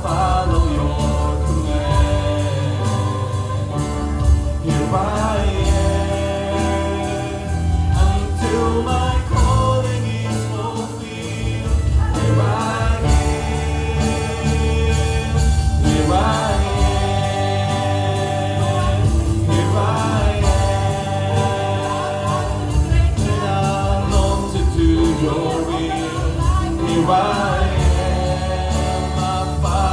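Gospel worship song with singing over a sustained band accompaniment.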